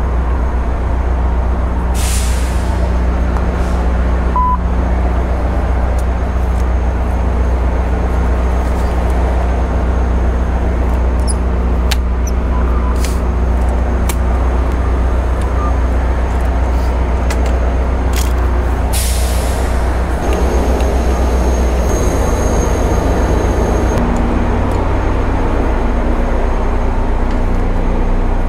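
A large diesel engine idling steadily, with two short hisses of released air from air brakes, about two seconds in and again after about nineteen seconds.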